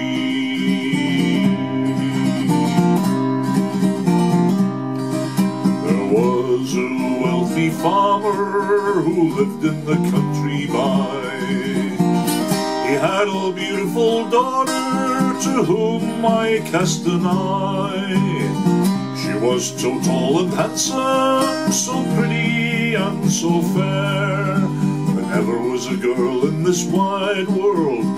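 Instrumental country music led by acoustic guitar.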